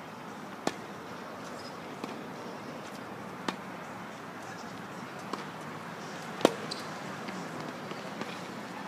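Tennis rally: sharp racket strikes on the ball roughly every three seconds, the loudest about six and a half seconds in, with quieter ball bounces on the court between them, over a steady outdoor hiss.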